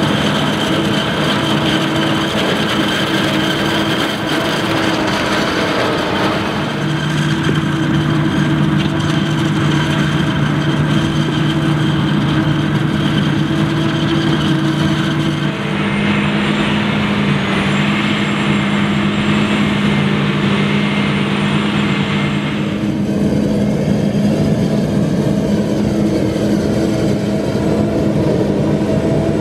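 John Deere 8500i forage harvester working through standing maize: a steady, loud machine hum with several held tones from the engine and cutting and chopping drive. A rushing hiss joins it in the middle, and the sound shifts abruptly a few times.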